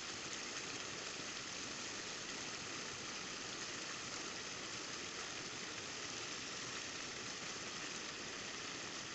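Steady rush of water pouring over a rock ledge, an even hiss with no breaks.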